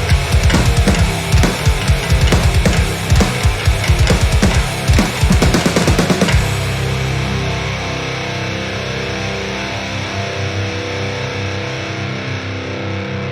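Heavy rock music with drums and distorted electric guitar; about six seconds in the drums stop and a distorted guitar chord rings on, slowly fading.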